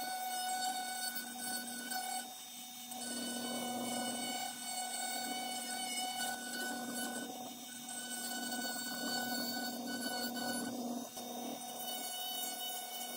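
Dremel rotary tool running through a flex-shaft handpiece, a steady high whine with a small bit grinding into oak as fine detail is carved. The loudness dips briefly a few times as the bit eases off the wood.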